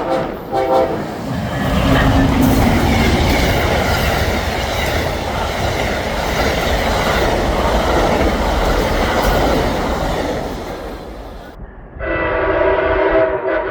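Diesel locomotive horn sounding short chorded blasts, then a train passing close at speed with loud wheel-on-rail rumble and clatter. Near the end, after an abrupt cut, another locomotive horn sounds a long steady chord.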